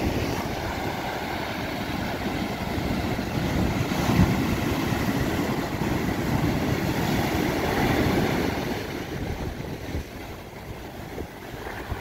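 Pacific Ocean surf breaking and washing in foam around rocks on the shore, a steady rushing that swells twice and eases near the end, with a low wind rumble on the microphone.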